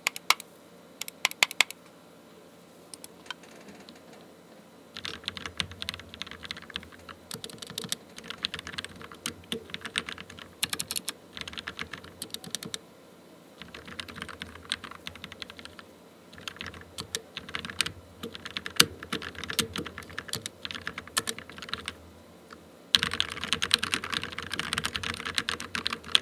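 Typing on a Rakk Lam-Ang Pro mechanical keyboard fitted with Gateron Black Ink v2 linear switches and some Kailh Brown tactile switches. A few single keystrokes come first, then runs of typing, which turn faster and louder near the end.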